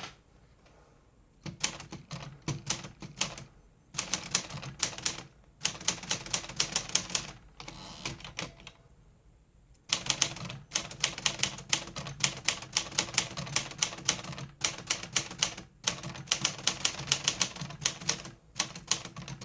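1952 Smith Corona Sterling manual typewriter, stripped of its body panels, typing in quick runs of keystrokes with short pauses between them.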